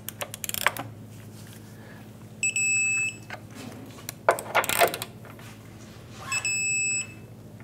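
Torque wrench tightening bolts with bursts of ratchet clicks, then a steady electronic beep of under a second as each bolt reaches the set torque of 81 foot-pounds, twice.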